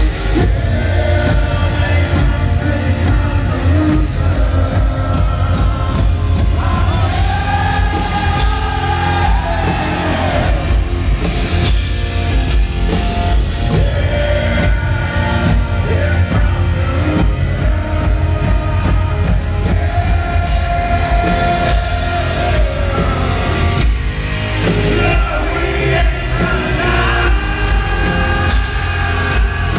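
Live rock band playing loud: distorted electric guitars, bass and drums, with a man singing lead over them.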